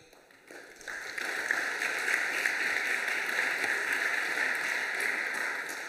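Audience applauding, starting about a second in and holding steady.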